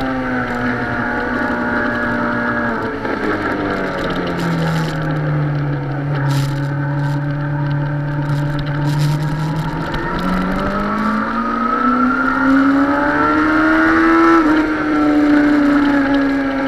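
Suzuki sportbike engine heard from on board, with wind rush. Its pitch falls as the bike slows into a tight bend and holds low for several seconds. It then climbs under acceleration until a sudden drop about 14 seconds in, an upshift.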